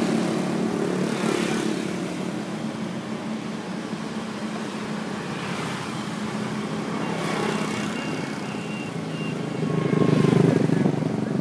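Truck-mounted crane's engine running steadily, revving up louder about ten seconds in as the hook is worked.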